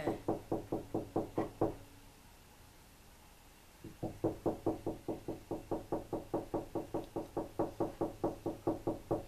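Rapid, steady knocking on a door, about five knocks a second; it stops for about two seconds and then starts up again at the same pace.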